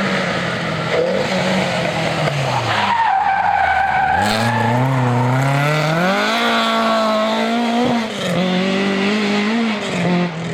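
Historic rally car driven hard: the engine revs fall away about two to three seconds in, then climb steeply as it accelerates, hold high, and drop sharply near eight seconds in at a gear change before pulling again. Tyres squeal under it.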